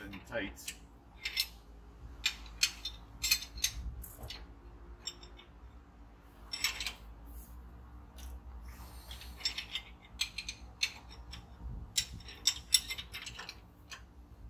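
Metal wrenches clicking and clinking on the bolts of a 2011 Ford F-150's front brake caliper as they are turned and handled: many sharp, irregular clicks, bunched in a few clusters.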